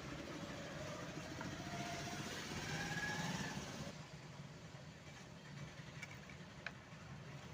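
An engine running in the background, swelling louder and then falling away about halfway through, followed by a single sharp click near the end.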